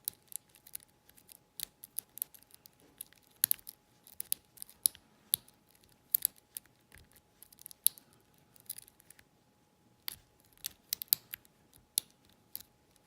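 Steel lock pick and tension wrench working inside a Corbin wafer cabinet lock: irregular sharp metallic clicks and ticks as the pick's hook tip probes and lifts the wafers, with a brief pause about nine seconds in.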